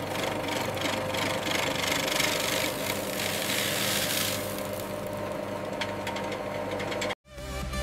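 Rubber fine-grinding mill running: a steady machine hum with a grainy hiss of crumb rubber churning in the spinning chamber, a little stronger around the middle. It cuts off abruptly near the end.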